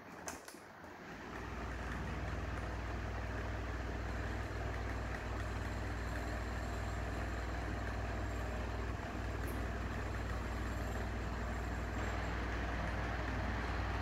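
Sunny box fan switched on with a click, its motor spinning up over about a second and then running steadily: a low hum under an even rush of air from the blades.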